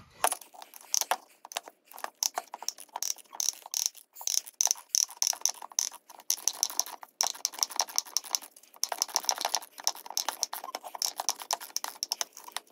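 Socket ratchet clicking in quick runs with short pauses as it is swung back and forth. It is turning the forcing screw of a power steering pulley puller to draw a tight pressed-on pulley off the pump shaft.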